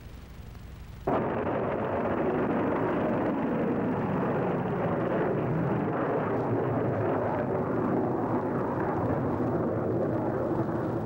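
Nike Zeus anti-missile missile launching. The rocket motor's roar starts abruptly about a second in and carries on steady and loud as the missile climbs.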